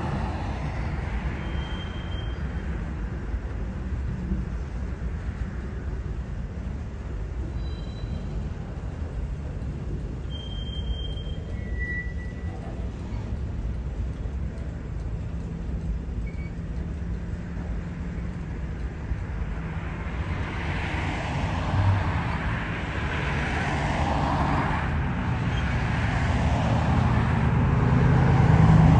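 Freight train cars rolling past with a steady low rumble, with a few brief high squeaks early on. From about two-thirds of the way in, a car on the road approaches and grows louder toward the end.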